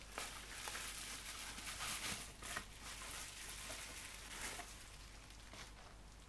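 Plastic bubble wrap and a thin wrapping sheet crinkling and rustling as they are handled and pulled open, a quick run of small crackles that is busiest in the first three seconds and then trails off.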